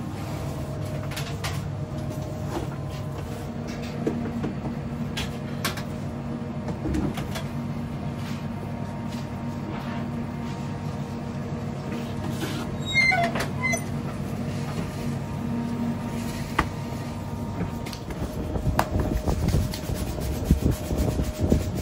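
Steady hum of bakery kitchen machinery, with scattered light clicks and a brief squeak about two-thirds of the way through. Near the end the hum drops away and soft, irregular thumps take over.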